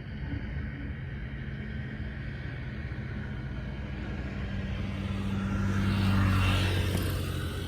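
A motor vehicle driving past: an engine hum and tyre noise swell to a peak about six seconds in, then fade.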